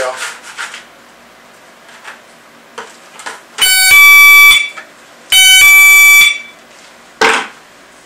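Wireless driveway-alert receiver, used as a mailbox alert, beeps twice, each beep about a second long, signalling that the mailbox door has been lowered and the mail has come. A single knock near the end as a plastic five-gallon bucket is set down on the floor.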